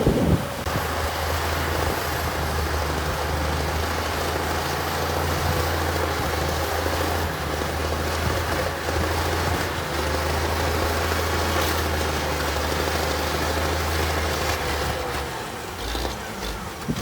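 Diesel engine of heavy earthmoving equipment running steadily, with a brief knock right at the start and a change in the engine note near the end.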